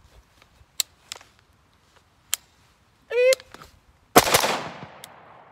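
A shot timer beeps once, and about a second later the PSA 16-inch AR-15 fires. The report is sharp and loud, and its echo fades over about a second.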